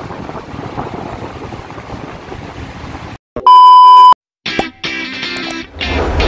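A steady rushing noise for about three seconds, cut off by a loud, flat beep of about half a second. After a short gap, intro music starts: a few short notes, then music with a steady bass.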